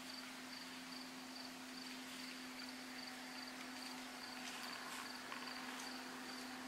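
A cricket chirping steadily, about three evenly spaced high chirps a second, over a steady low hum.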